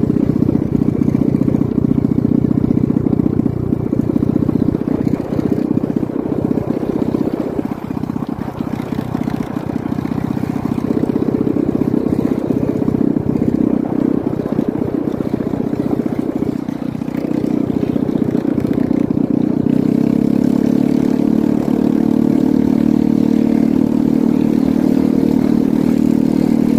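Engine of a vehicle running as it drives along a road. The engine note settles into a steadier hum about three-quarters of the way through.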